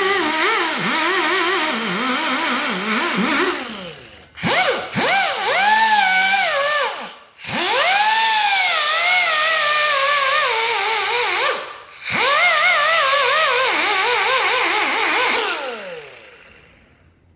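High-speed air sander grinding a rusty brake rotor, its whine rising and falling in pitch as it bogs down against a raised rust spot. It cuts out briefly about four, seven and twelve seconds in, then winds down near the end. It is taking down the rust high spot left where the pad sat, the cause of brake pulsation and humming.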